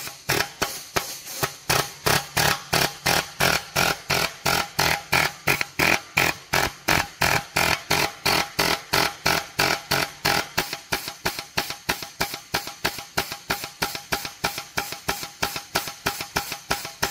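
Background music with a steady, quick percussive beat, about four beats a second.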